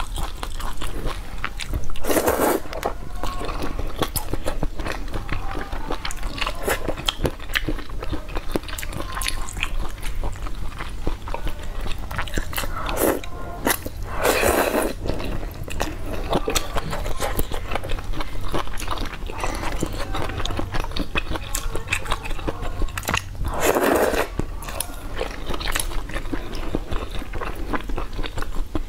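Close-miked eating of luosifen rice noodles: steady chewing with many small mouth clicks, and three louder noodle slurps, about two seconds in, near the middle and about five seconds before the end.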